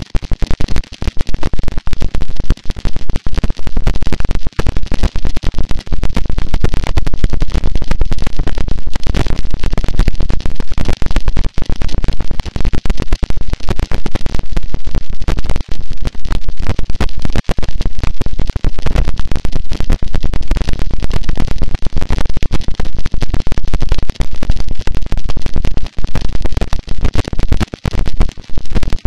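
Harsh noise wall: a loud, unchanging wall of distorted static, heaviest in the bass and full of rapid crackle, with no pitch, rhythm or melody.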